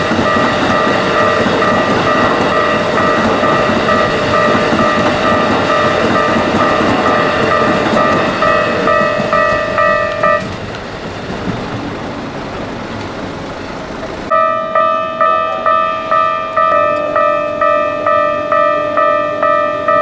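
Japanese railway level-crossing warning bell ringing in a rapid electronic pulse, about two strokes a second, while Keikyu trains run through the crossing. About ten seconds in the bell stops and only the train's running noise is heard. A few seconds later the bell starts again, pulsing on its own.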